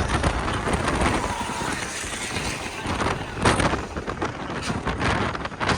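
Steady road-vehicle running noise, a low rumble under a broad rushing hiss, with a short louder burst of noise about three and a half seconds in.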